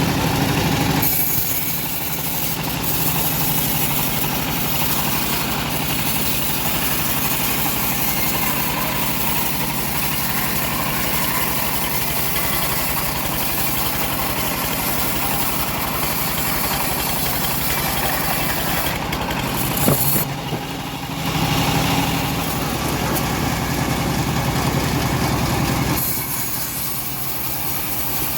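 Homemade bandsaw sawmill running on its engine: a steady drone with a high hiss over it. There is a sharp knock about twenty seconds in, and the sound shifts again near the end.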